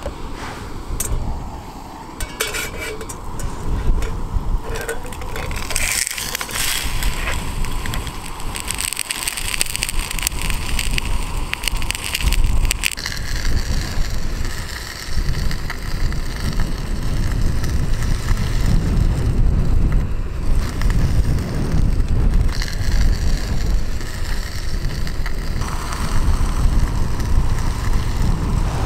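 Wind buffeting the microphone, with clicks and knocks from a small gas canister stove and frying pan being handled as a steak is laid in the pan and seasoned. The clicks and knocks come mostly in the first half.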